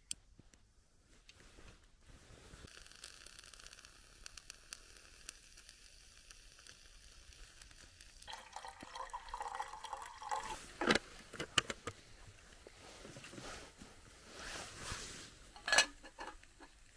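A lighter struck to light the wick of a small steel alcohol burner, then the burner's flame burning with a faint, crackly hiss. Partway through comes a few seconds of liquid sound, then two sharp metal clanks as a steel mess cup and its lid go onto the burner's pot stand.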